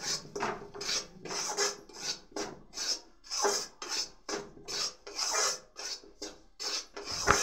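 Metal spatula scraping and stirring gram flour around the inside of a metal kadhai, about three rasping strokes a second, as the besan roasts in oil on low heat. A sharp knock of the spatula against the pan near the end.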